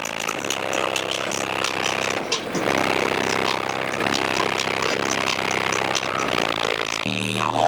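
A vehicle engine revving hard and continuously, its rough note full of rapid crackles. Music with a heavy bass comes in near the end.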